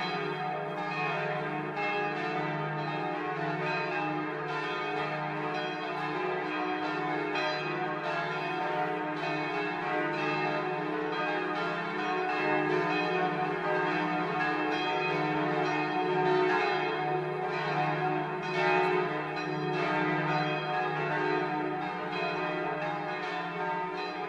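Church bells ringing in a continuous peal, several bells struck again and again with their tones overlapping and sustaining.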